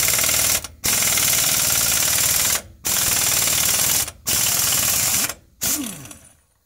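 Air impact wrench hammering in bursts of one to two seconds with brief pauses, spinning the loosened pinion nut off a front differential's pinion shaft. A last short burst near the end winds down with a falling whine.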